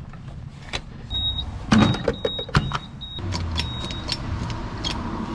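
Fuel pump at a gas station: short high electronic beeps and sharp clicks and knocks as the card reader and nozzle are handled, then a steady low hum of the pump dispensing fuel from about three seconds in.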